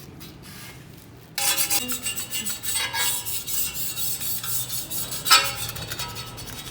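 Scraping and rubbing on a bicycle frame to strip off its stubborn original paint: rapid, rasping strokes start about a second and a half in, with one louder stroke near the end.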